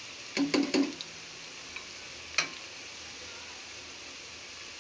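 Spatula knocking against the pan while stirring onions frying in oil: a quick run of three or four knocks about half a second in and a single knock a couple of seconds later, over a faint steady sizzle.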